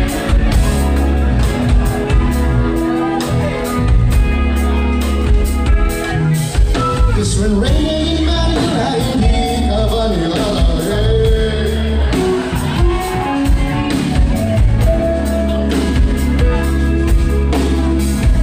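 Live rock band playing at full volume: drum kit keeping a steady beat, electric guitars and bass, and a lead vocalist singing over them, heard through a PA in a large room.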